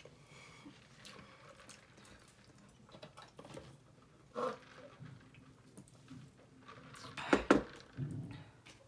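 Chewing and small mouth noises from eating chicken nuggets, with scattered faint clicks. Two loud sharp clicks come close together about seven seconds in.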